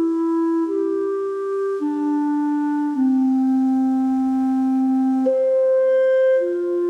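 Slow clarinet melody of long held notes: it steps down over the first three seconds to a low note held for about two seconds, then leaps up to a higher note.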